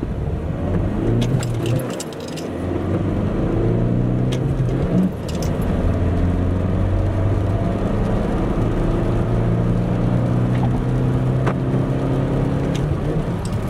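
Hyundai i30's 1.4 CRDi four-cylinder turbodiesel heard from inside the cabin under full-throttle acceleration, its note climbing with the revs. The note drops and picks up again about two and five seconds in as gears are changed, then pulls in one long steady rise. A few light rattling clicks come early on.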